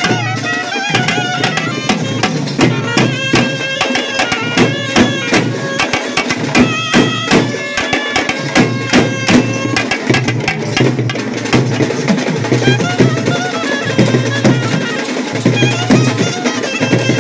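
Three clarinets playing a Tamil folk melody together over fast, steady thappattam frame-drum beats. The clarinet lines are busiest in the first half and thin out later while the drumming keeps going.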